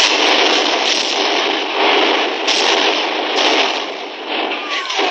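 Battle sound effects on an old film soundtrack: a continuous din of gunfire and artillery shell explosions, easing somewhat near the end.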